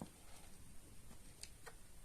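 A pet rat coughing: a few faint short clicks, two close together about one and a half seconds in.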